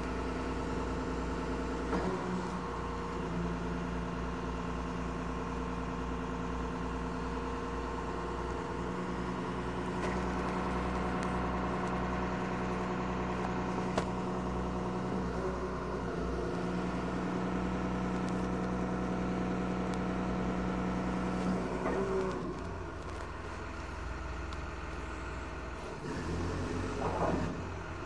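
A 16-ton internal-combustion forklift's engine running steadily under hydraulic load while the fork positioner moves the forks apart and back together. The engine note eases off about 22 seconds in and revs up briefly near the end as the truck drives forward.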